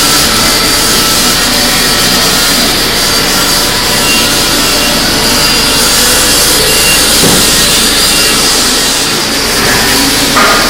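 Panasonic robot MIG welding torch running a steady arc, a loud continuous crackling hiss with a faint high whine above it.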